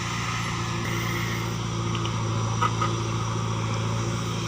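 JCB 3DX backhoe loader's diesel engine running at a steady speed, with a couple of light knocks about two and a half seconds in.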